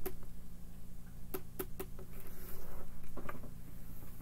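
Fingers tapping on tarot cards on a wooden table: three quick taps about a second in and a couple more near three seconds, with a soft rustle between them. A steady low hum runs underneath.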